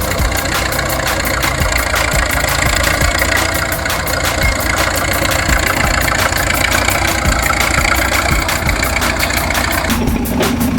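Engine idling steadily, its firing pulses coming as a fast, even chugging. A low steady hum joins near the end.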